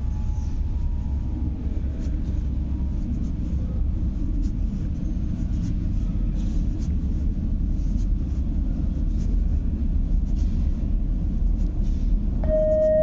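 Metro train running with a steady low rumble. Just before the end, a chime of tones stepping down in pitch begins.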